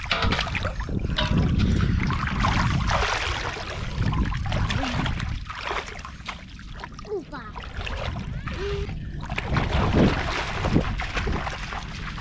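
River water splashing and sloshing around people wading in it, with wind rumbling on the microphone, loudest in the first few seconds and again near the end.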